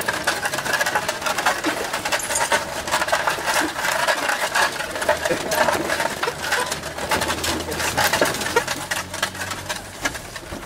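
Wooden ox-cart rattling and clattering as it rolls over a bumpy dirt track, a dense, irregular run of clicks and knocks.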